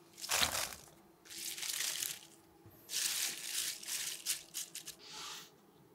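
Handfuls of freshly cut green onions (jjokpa) dropped into a wooden bowl of julienned vegetables, the stalks rustling crisply in four separate bursts.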